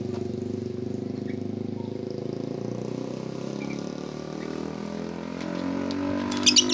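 A small engine running steadily, its pitch rising a little near the end. A few sharp, high bird squawks come just before the end.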